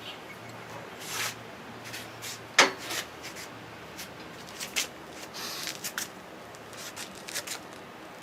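Workshop handling sounds: scattered clicks, rubbing and knocks, the loudest a sharp knock about two and a half seconds in, over a faint low hum that fades out about halfway.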